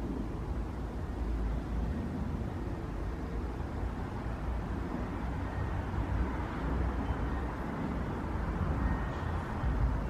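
Wind buffeting the microphone, a low rumble that rises and falls in gusts, over a steady outdoor hiss.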